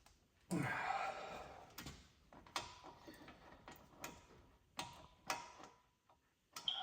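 Hand tools being handled during work on a car's front hub: a louder scraping clatter about half a second in, then a string of separate metallic clicks and clinks, some ringing briefly.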